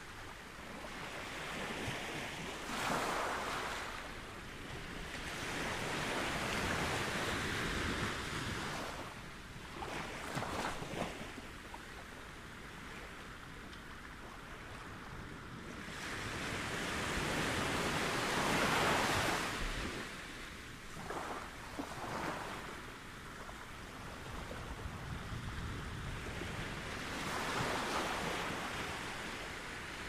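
Ocean surf: low waves breaking into foam and washing up the beach, the rush of water swelling and easing every few seconds.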